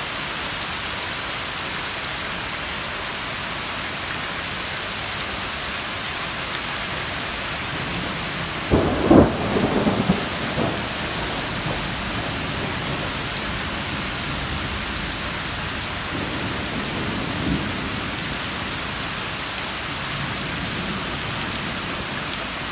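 Heavy, steady rain from the back end of a hurricane, pouring onto pavement and lawn. About nine seconds in comes a sudden clap of thunder that rumbles for a couple of seconds, with a fainter rumble later on.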